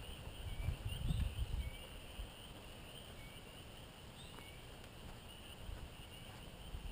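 Wild outdoor ambience: a steady high insect drone with a few short bird chirps over it, and low rumbles in the first couple of seconds.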